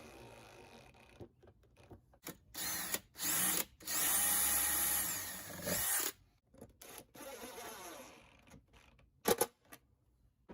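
Power drill running in several short bursts, its motor pitch rising and falling, with a few sharp clicks near the end.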